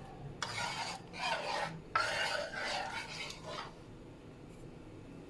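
A spoon scraping through dal in a cooking pan as it is stirred: three scraping strokes in the first three and a half seconds, then only a faint low hum.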